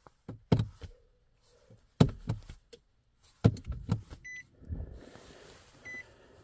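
A few clicks and knocks from handling inside the Nissan Altima's cabin. About four seconds in, the car's electronic warning chime starts, beeping twice about a second and a half apart.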